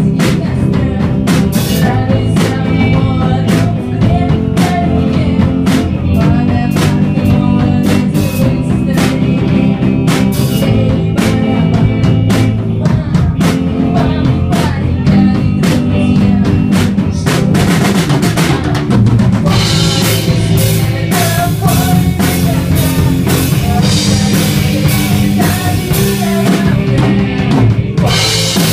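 Amateur rock band playing live: drum kit with kick and snare hits throughout, over electric guitars and bass guitar. The cymbals get louder and busier about two-thirds of the way in.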